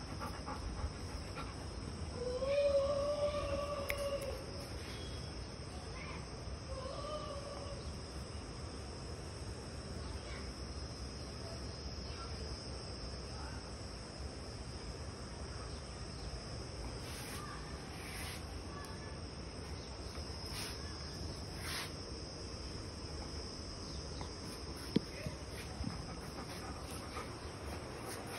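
Steady high-pitched insect drone throughout. About two seconds in a long drawn-out pitched call sounds, the loudest thing here, with a shorter one a few seconds later, and a single sharp tick near the end.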